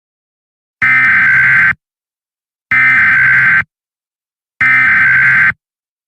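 Emergency Alert System SAME header: three identical bursts of rapid two-tone digital data, each just under a second long with silence about a second between them, a harsh buzzing screech. This is the coded data burst that opens an EAS alert.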